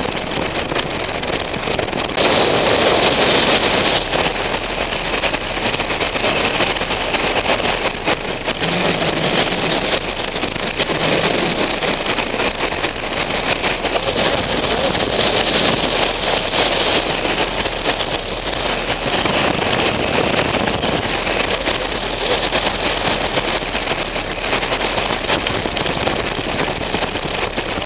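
Strong wind of over 30 mph buffeting the microphone on a tower top, a dense rushing noise that surges in gusts, the strongest about two to four seconds in.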